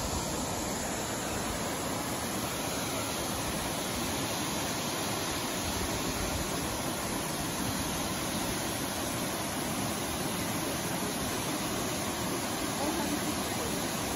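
Steady rushing of Aguasabon Falls, a waterfall pouring down into a rocky gorge, an even wash of water noise without a break.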